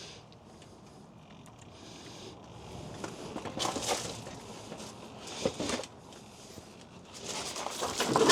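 Scuffs, shuffling and a few knocks as a heavy touring motorcycle is manhandled by hand, with the noise picking up near the end.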